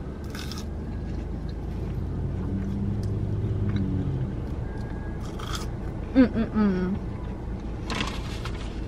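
Low, steady vehicle rumble heard inside a car cabin, swelling a little in the middle. A short murmured voice sound comes about six seconds in.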